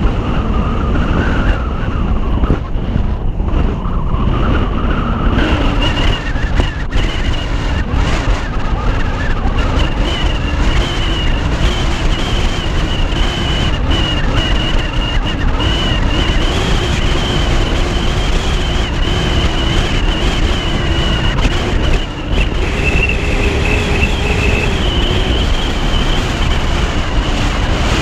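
Wind buffeting a roof-mounted camera's microphone over the road noise of a moving car, with a thin, wavering high whistle setting in a few seconds in.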